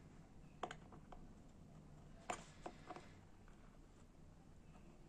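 A handful of faint, sharp clicks of small metal hand tools against a lighter's gas refill valve as its edge is bent inward, the loudest a little past two seconds in, over near silence.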